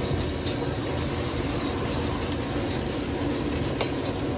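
Steady rumbling roar of a street-stall gas burner heating a steel wok of liquid, with a few light clicks near the end.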